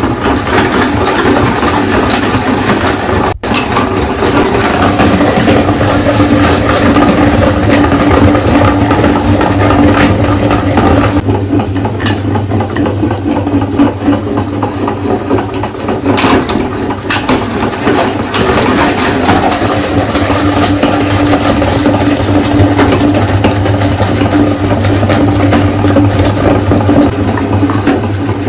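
Electric meat grinder running steadily, its motor humming under frequent small cracks and clicks as hard candy lollipops are ground. There is a brief break about three seconds in.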